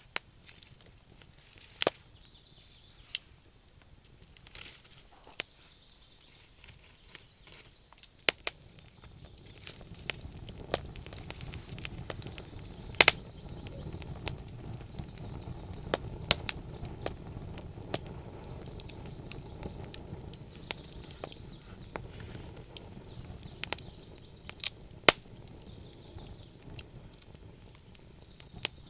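Wood fire crackling, with sharp irregular pops and snaps. From about a third of the way in, a low steady rush of burning fills in beneath the pops, easing off near the end.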